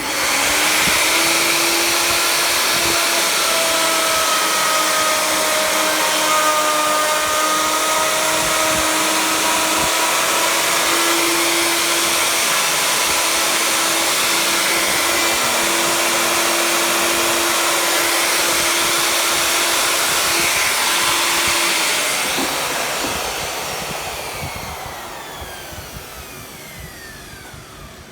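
Handheld electric router switched on with a sudden start, its high-speed motor running at a steady whine for about twenty seconds, then switched off and spinning down with a falling pitch as it fades out.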